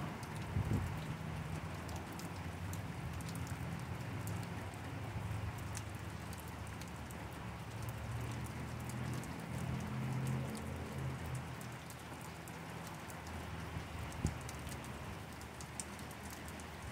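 Steady rain falling, with scattered sharp drop ticks and a low rumble underneath that swells about two-thirds of the way through.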